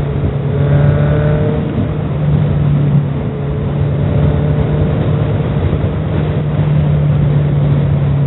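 Honda CB650R's inline-four engine running at a steady pitch.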